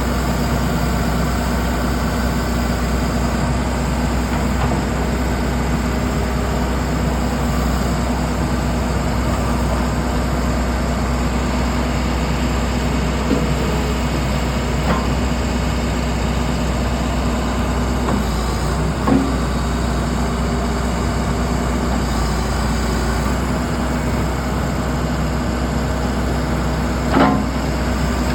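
Diesel engine of a 2008 John Deere 310J loader backhoe running steadily while the machine works, with a few short metallic clanks, the loudest near the end.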